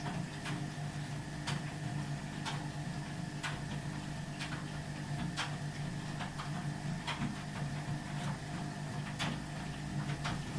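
Ardo washing machine running, a steady low hum with a sharp tick about once a second.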